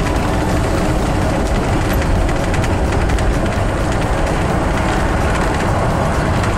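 Class A motorhome driving at highway speed, heard from inside the cab: a loud, steady rumble of engine and road noise.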